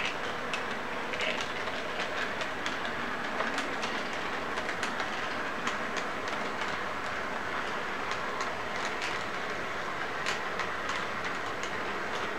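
Model train rolling past on its track: a steady whirring rumble from the locomotive's motor and the wheels, with frequent irregular clicks as the wheels run over the track.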